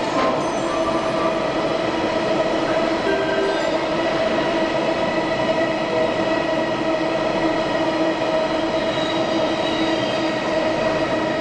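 Freight train of tank wagons rolling past: a steady, loud rumble and rattle of wheels on rail, with steady ringing tones held over it.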